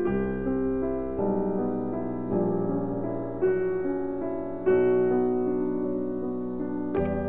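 Background music: a piano playing slow sustained chords, a new chord struck about every second.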